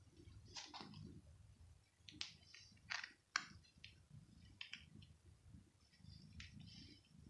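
Soft rustling of a hand stroking a cat's fur, with a few sharp clicks, the loudest about three seconds in, over a faint low rumble.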